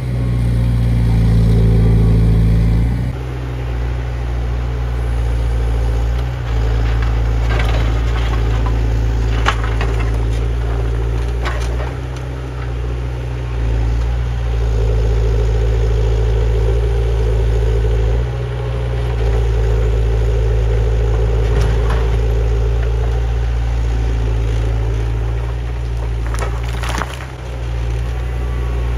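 Menzi Muck A61 4x4 walking excavator's diesel engine running steadily as the machine works, its note shifting with the load, with a few sharp knocks scattered through.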